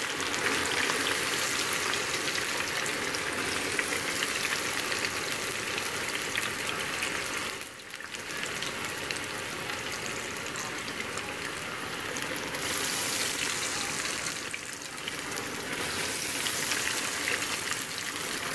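Chopped potatoes frying in hot oil in a skillet: a dense, steady sizzle and crackle of bubbling oil, which dips briefly twice.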